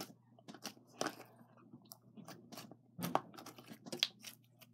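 Glittery glue-and-shaving-cream slime squished and poked in the hands, giving quiet, irregular clicks and crackles.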